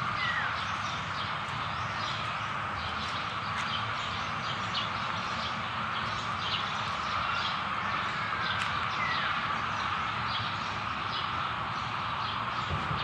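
Several birds calling, with many short high chirps and a couple of brief falling whistles, over a steady hiss.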